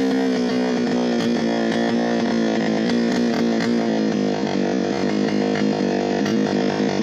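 Chainsaw engine running steadily, its pitch sliding down over the first couple of seconds and then holding level.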